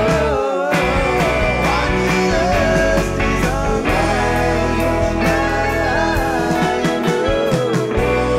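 Rock song in an instrumental passage: drums and bass under a lead melody that bends and glides in pitch.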